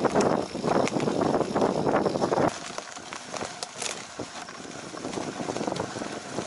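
Mountain bike ridden along a rough forest trail: wind buffeting the camera microphone over the clicks and rattle of the bike on the ground. It drops abruptly to a quieter ride about two and a half seconds in.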